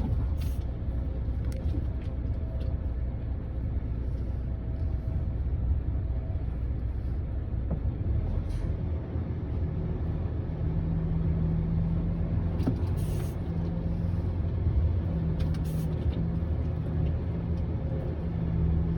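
Truck's diesel engine running at low speed, heard from the cab as the truck creeps forward, with a steadier engine tone from about ten seconds in and a few short hisses.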